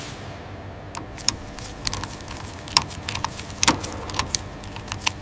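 Irregular small metallic clicks and clinks, several a second, as a circular multi-pin electrical connector is handled and pushed into its panel socket, over a low steady hum.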